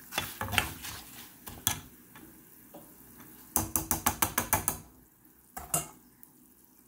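Wire-mesh strainer scraping and tapping against a frying pan as dried rice is stirred in hot oil. Scattered clicks at first, then a quick run of about eight taps halfway through and a couple more a second later.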